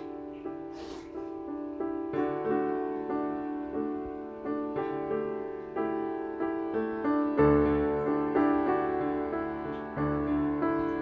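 Background keyboard music: a piano-like tune of held notes that change every second or so.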